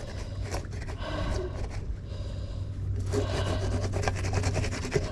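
Rubbing and scraping on a plastic sign, hands wiping mud off its surface, in two spells with a short pause about two seconds in.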